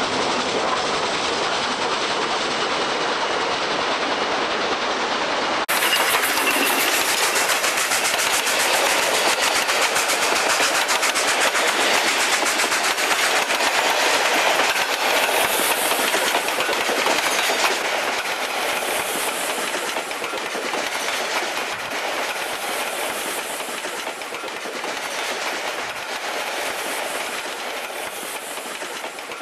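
Steam train running at speed: a steady rush crossed by a dense, rapid beat. About six seconds in the sound changes abruptly and turns fuller and brighter, then eases slightly toward the end.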